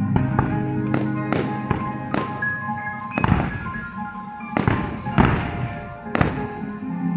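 Aerial fireworks shells bursting, a rapid, irregular series of about a dozen sharp bangs, some ringing on briefly, over the show's music soundtrack.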